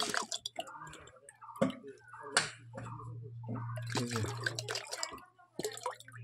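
A small plastic bottle dunked again and again into a bucket of water, gurgling as it fills and splashing as it is emptied back, rinsing the last of the decomposer culture into the water. Irregular sharp plops and drips, with a low steady hum underneath.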